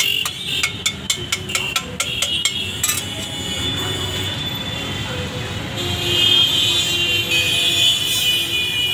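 Metal spatula clinking and scraping against a large flat griddle as tomato chaat is stirred, about three taps a second, stopping about three seconds in. Street traffic and voices behind.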